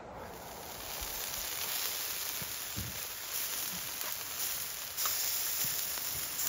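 Campfire embers hissing and crackling under chickens roasting on spits, a steady sizzle with a few small crackles that grows louder about five seconds in.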